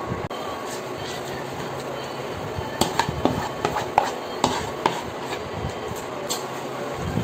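A wooden spatula knocking and scraping against a bowl and a stainless steel pot as cooked shrimp are pushed into a vegetable stir-fry and stirred: a run of sharp clicks and knocks starting about three seconds in. A steady hiss lies under it.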